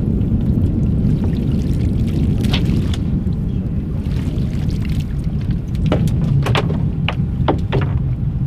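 Steady low rumble of wind and water around a small boat, with water running off a landing net as it is lifted from the lake. A quick series of sharp knocks and taps about six to eight seconds in.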